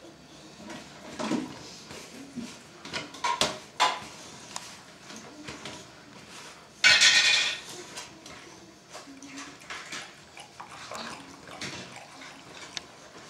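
A dog eating from its food bowl: a string of clinks and knocks as the bowl clatters in its metal stand, with one longer, louder rattle about seven seconds in.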